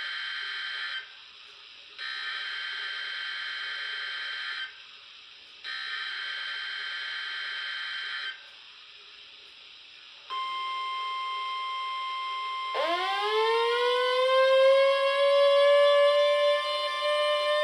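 NOAA Weather Radio SAME digital header for a Required Weekly Test: buzzy data bursts of about two and a half seconds, repeated with short gaps. About ten seconds in a steady high tone comes on, and near thirteen seconds a weather alert receiver's alarm starts, louder, sweeping up in pitch like a siren and then holding.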